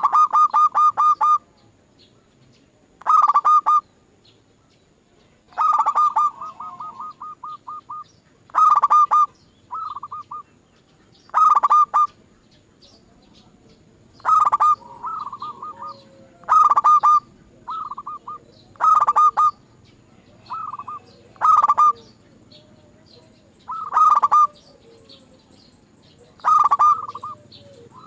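Zebra dove (perkutut) song: rapid staccato runs of cooing notes, each run about a second long and repeated every two to three seconds, with softer, shorter runs in between.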